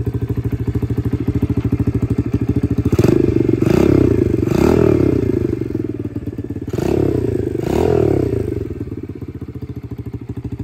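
XPRO 125cc dirt bike's single-cylinder four-stroke engine, freshly started and running cold at half choke, idling with a steady pulse. It is revved with two bursts of throttle blips, about three and seven seconds in, each rising and falling before it drops back to idle.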